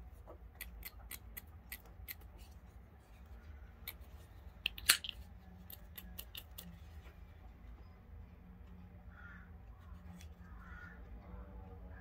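Small metallic clicks from handling a Benchmade AFO automatic folding knife. About five seconds in comes one sharp, loud snap with a brief ring as the spring-driven 154CM blade fires open and locks.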